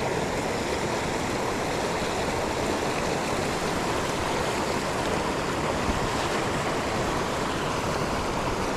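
Fast-flowing mountain creek rushing over rocks: a steady rush of running water.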